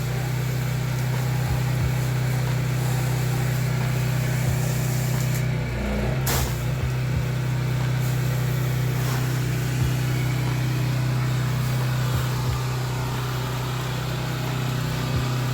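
Pressure washer engine running steadily under load, a constant low drone with spray hiss over it. A single sharp click comes about six seconds in.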